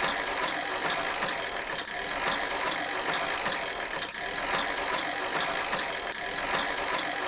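Bicycle being ridden: a steady rolling hiss of the tyres with a light rattle of chain and frame.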